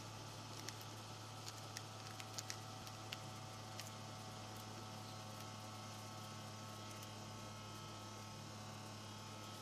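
Steady low electrical hum over faint hiss, with a scattering of faint clicks in the first few seconds.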